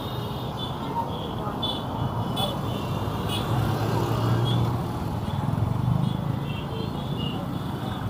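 Busy street ambience: steady road traffic, with a vehicle engine's low hum building and then easing off in the middle, over faint background voices.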